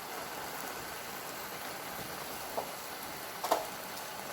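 Shrimp and vegetable stir fry sizzling in a pan, a steady hiss, with two light knocks past the middle and near the end.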